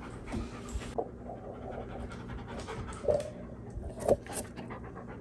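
Golden retriever panting steadily right at the microphone, with a few brief louder sounds about one, three and four seconds in.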